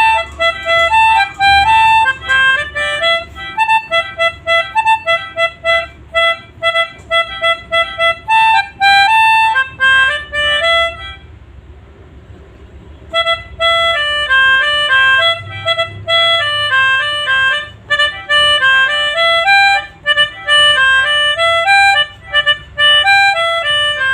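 Pianika (melodica) playing the Basuri bus's telolet horn melody in quick runs of short reedy notes. It breaks off for about two seconds near the middle, then starts again.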